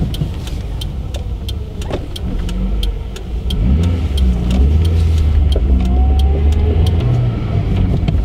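Car driving, its engine note stepping up and growing louder about three and a half seconds in as it accelerates. A regular ticking about twice a second runs alongside it.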